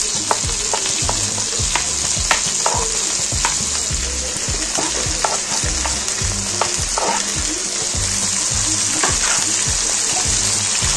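Tomatoes, green chilies and mint frying in hot oil in a karahi: a steady sizzle with scattered clicks and knocks of a spoon and wooden spatula against the pan and chopping board.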